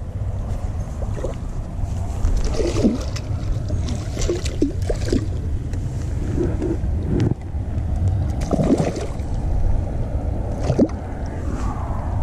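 Steady wind rumble on the microphone, with scattered splashes and sloshes from a hooked largemouth bass thrashing at the water's edge as it is landed.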